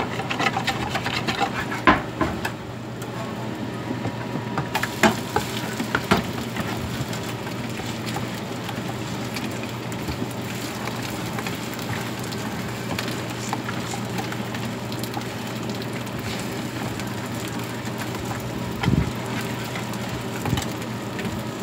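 Pancake batter sizzling steadily as it fries in oil in a frying pan, with a metal spatula scraping and tapping against the pan several times in the first six seconds and a dull thump near the end; batter is being stirred in a plastic bowl alongside.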